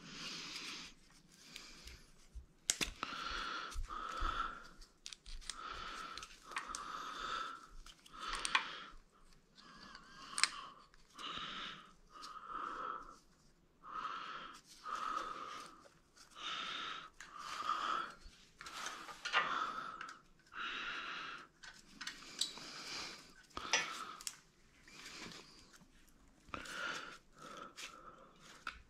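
Hand ratchet wrench being worked back and forth on engine bolts: a burst of rasping clicks on each stroke, about one a second.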